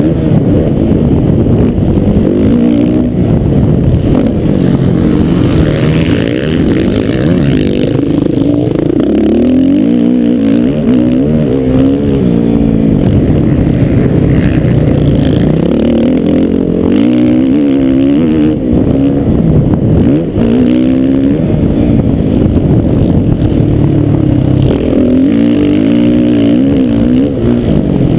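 Motocross bike engine under hard riding, revving up and dropping off again and again as the rider accelerates, shifts and backs off through the track, heard loud from on the rider's helmet.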